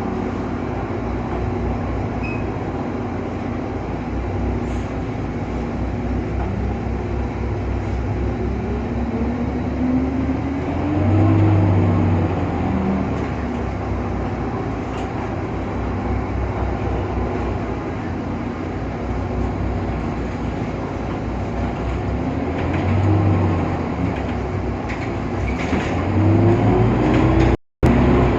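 Irisbus Citelis CNG city bus with its Cursor 8 gas engine running under way. A pitched whine rises as the bus pulls and accelerates, about ten seconds in and again near the end. The sound cuts out for a moment just before the end.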